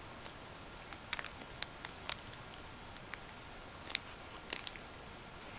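Light, irregular clicks and ticks from a kitten batting at a dangling bead-chain toy and scrabbling in a woven basket. The clicks come in small clusters about a second in and again around four seconds.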